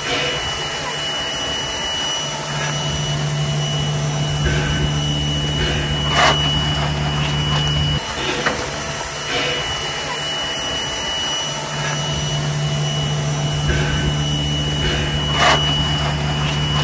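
Standing steam locomotive NM25 hissing steam steadily, with a constant high whine and low hum, and a couple of brief clicks.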